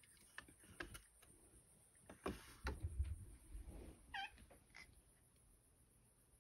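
A few soft knocks and low thumps, then one short meow from a house cat about four seconds in.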